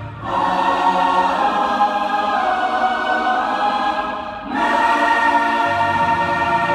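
Large mixed youth choir singing held chords with keyboard accompaniment, breaking briefly between phrases near the start and again about four and a half seconds in. The low keyboard notes drop out for a few seconds and come back near the end.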